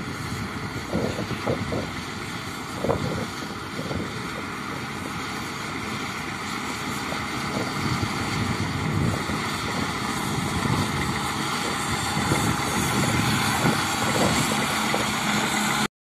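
Caterpillar crawler bulldozer's diesel engine running as it pushes soil, with a few knocks in the first few seconds. It grows gradually louder as the dozer comes closer.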